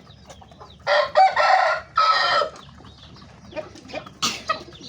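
Chickens calling: two loud, harsh calls about a second and two seconds in, and a shorter, higher call near the end.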